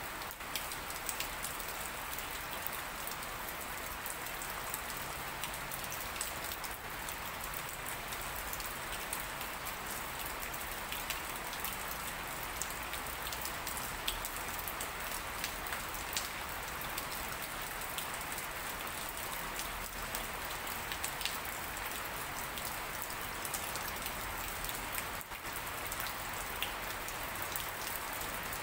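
Steady rain falling: an even hiss of rain, with many sharp ticks of single drops landing throughout.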